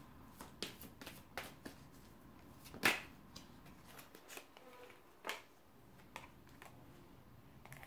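Tarot cards being shuffled and handled by hand: a faint run of soft card flicks and taps, with a sharper snap about three seconds in and another about five seconds in.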